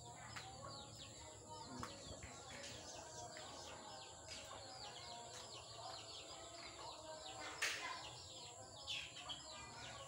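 A flock of swiftlets calling: many short, high chirps that fall in pitch, several a second, over a steady high tone. A single sharp click comes about three quarters of the way through.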